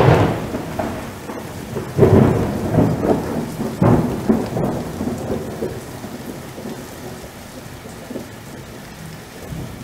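Thunder rolling over steady rain: a loud crack at the start, further heavy rumbles about two and four seconds in, then dying away.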